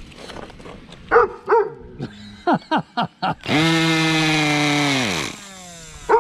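Small glow-fuel engine on a Cox model helicopter being started: a few sharp pops, then a loud steady buzz for about two seconds that drops in pitch and dies away. A dog barks twice before it and once more at the end.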